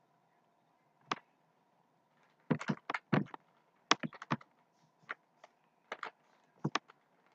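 Clicking at a computer: about a dozen short, sharp clicks in quick irregular clusters, the busiest run a little past halfway.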